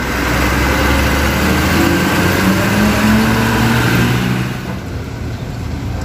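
Mitsubishi Fuso FM series box truck's diesel engine and tyres passing close by, loud for about four seconds and then fading away.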